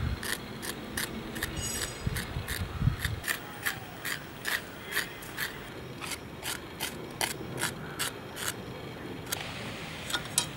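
Curved iron knife blade cutting and scraping jackfruit seeds held in the hand: a run of short, crisp scraping strokes, about two to three a second, that stops shortly before the end.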